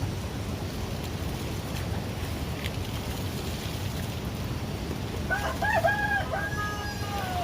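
A rooster crowing once, about five seconds in: a few short notes running into one long held note, over a steady low rushing noise.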